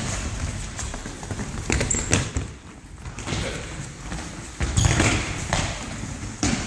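Football being kicked and bouncing on a wooden sports-hall floor, with players' running steps: several thuds, the strongest about two seconds in, about five seconds in and near the end, each with a short echo.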